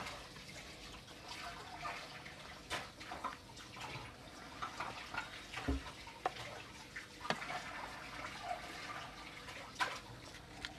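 Thick chocolate muffin batter being spooned from a bowl into a paper piping cone: soft wet plops and drips, with scattered light clicks of the metal spoon and one dull knock about halfway through.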